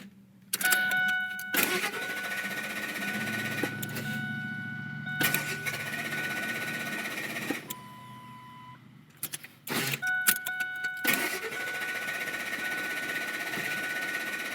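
Ford F-150 engine cranking on its starter for a few seconds without catching, with clicks and a steady electronic warning beep. It is a crank-no-start, which the owner puts down to old, dark gasoline or the anti-theft system.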